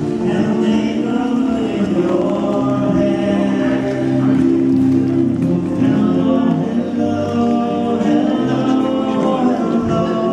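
Live music with singing from the market's musicians: choir-like voices holding long, sustained notes and chords.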